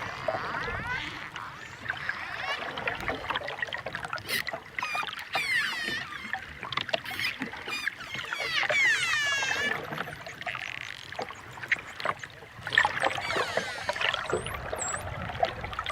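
Dolphins whistling and clicking: a run of whistles that sweep up and down in pitch, mixed with scattered clicks, and a couple of short high whistles near the end.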